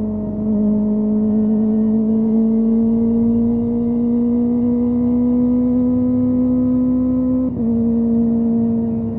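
Kawasaki ZX25R 250 cc inline-four engine pulling under throttle at high revs, its note rising slowly. About seven and a half seconds in, the note drops suddenly with a brief dip in loudness as the rider shifts up a gear, then the engine pulls on. Low wind rush runs underneath.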